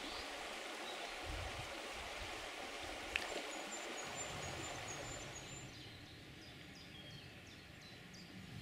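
River water running, a steady rushing noise, with one sharp click about three seconds in. About five seconds in the water sound drops away to quieter riverside ambience, with a small bird singing short, high, repeated notes.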